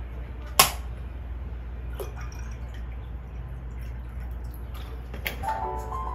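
Three sharp clicks or taps over a steady low hum; the first, about half a second in, is the loudest. Light music begins near the end.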